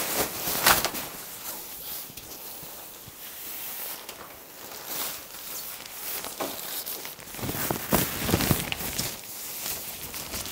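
Rustling and swishing of a spring-loaded pop-up bed tent's mesh fabric and frame as it is handled and unfurled, with several louder swishes, the loudest about eight seconds in.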